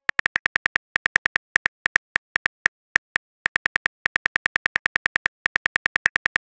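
Phone keyboard typing clicks: rapid, even taps of about eight to ten a second, coming in runs broken by short pauses as a text message is typed out.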